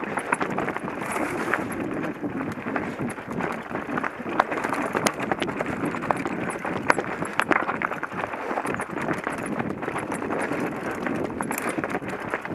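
Mountain bike rolling over a rocky trail: the tyres crunch on loose rock while the bike rattles, with many sharp clicks and knocks all through.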